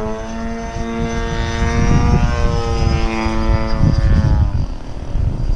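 Radio-controlled model airplane's engine droning in flight with a steady pitch, which sags slightly and fades out about four and a half seconds in as the plane moves away. A loud low rumble runs underneath.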